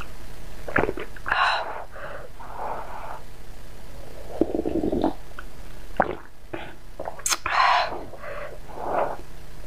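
Broth being slurped and swallowed from a paper noodle cup held to the mouth, close to the microphone: a series of sips and gulps, with two louder, hissing slurps about a second and a half in and about seven and a half seconds in.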